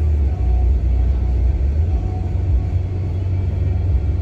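Steady low road-and-engine rumble heard inside the cab of a car driving along.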